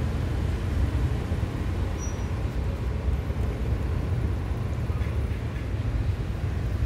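Steady low outdoor rumble with a fluttering level; no distinct chewing or crunching stands out above it.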